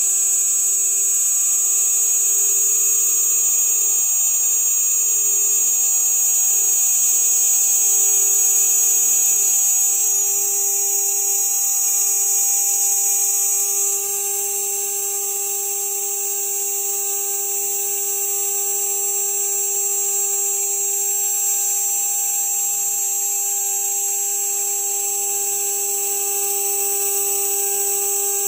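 CNC router spindle turning a 3 mm carbide end mill at 12,000 RPM, milling half-inch polycarbonate: a steady high-pitched whine over a lower steady hum. It drops a little in loudness about halfway through.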